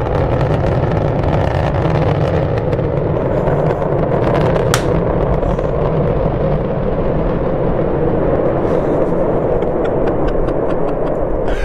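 Deep, steady rumble of the Starship SN5 prototype's single Raptor rocket engine, with a sharp crack about five seconds in and a few fainter crackles near the end.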